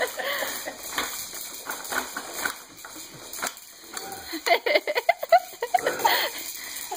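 A baby jumper seat clicking and rattling as the baby bounces in it, its frame and attached toys knocking with each bounce. Short wavering baby babbling comes briefly at the start and again past the middle.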